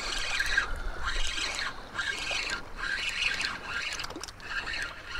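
Spinning reel being cranked to bring in a hooked fish, a whirring that comes in short repeated runs, over a low wind rumble on the microphone.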